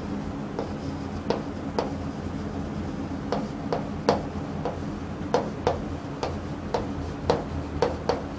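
Chalk writing on a chalkboard: irregular sharp taps and light scratches as each letter is written, about two a second, over a low steady room hum.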